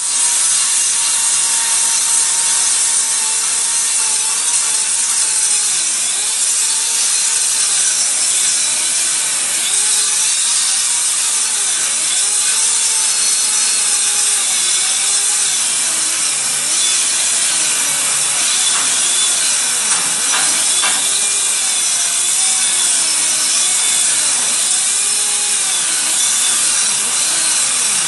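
Hand grinder running continuously against steel, a harsh hiss with a motor pitch that keeps dipping and recovering as the disc is loaded and eased off.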